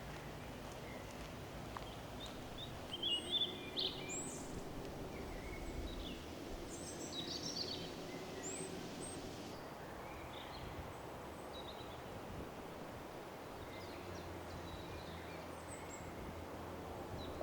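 Outdoor ambience with small birds chirping on and off: short, high, sometimes sweeping calls, busiest in the first half, over a steady low background noise.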